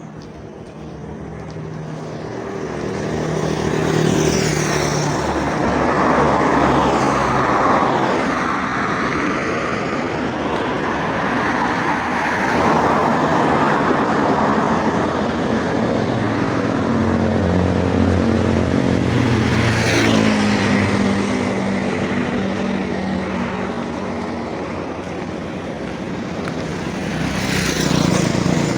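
Road traffic: motor vehicles going by, their engines and tyres swelling and fading several times.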